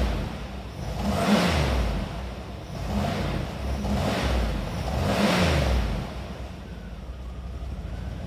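Cadillac Allante V8 blipped about five times in quick succession, about a second apart, to blow standing water out of the flood-damaged car's exhaust, then settling to a steady idle about six seconds in.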